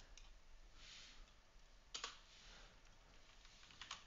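Near silence: room tone, with one soft click about two seconds in and a couple of faint ticks near the end.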